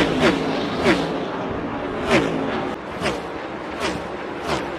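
NASCAR Next Gen stock cars' V8 engines passing one after another at racing speed, about six pass-bys, each with a sharp rise in loudness and an engine note that drops in pitch as the car goes by.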